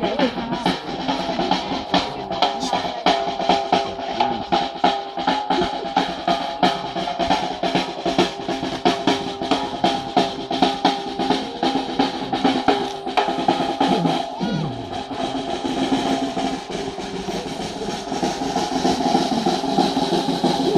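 Snare drum played with rapid strokes and rolls, several hits a second, with steady ringing tones underneath.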